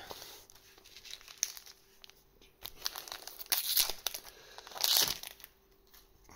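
Trading card booster-pack wrapper crinkling and being torn open, with two louder rustling rips in the second half.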